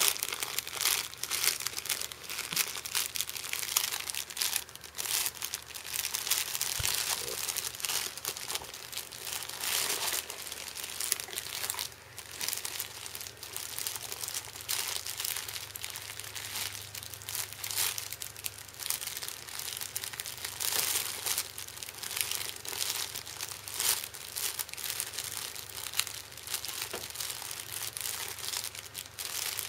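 A baby's hands grabbing and squeezing a soft cloth crinkle book, its crinkly lining crackling irregularly, on and off.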